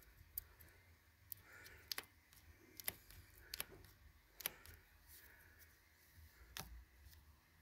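Near silence with faint, scattered small clicks, about one or two a second, as fingers push and release the spring-loaded aluminium brake jaws of a pneumatic brake.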